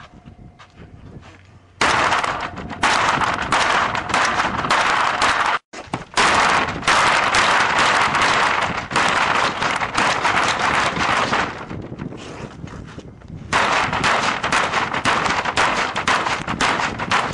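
Roller garage door being kicked again and again, its metal slats banging and rattling in long rapid volleys, with a short lull about two-thirds of the way through.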